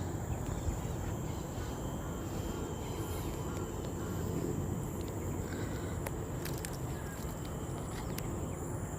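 Outdoor ambience of insects giving a steady high-pitched drone over a low rumbling noise, with a few faint clicks a little past halfway.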